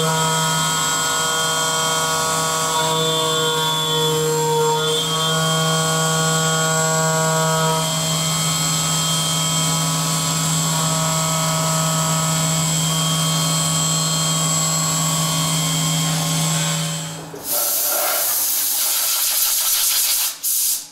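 Syil X7 CNC milling machine's spindle running an end mill through aluminium under flood coolant: a steady machine whine with several pitched tones that shift as the cut changes. About seventeen seconds in the cutting sound stops and a loud spraying hiss takes over.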